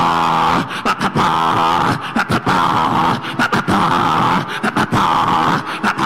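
A man praying aloud in tongues: a fast, loud stream of choppy, unintelligible syllables broken by many short pauses.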